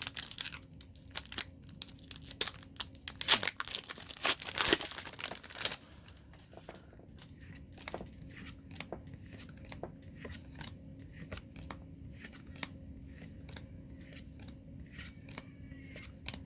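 Foil wrapper of a Magic: The Gathering booster pack being torn open and crinkled, loudest about three to six seconds in, followed by sparse light clicks of cards being handled.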